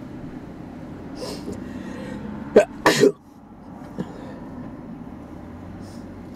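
Christ gantry car wash running its basic cycle: a steady machinery hum, broken about two and a half seconds in by two short, sharp bursts close together, the second the loudest, after which it runs a little quieter.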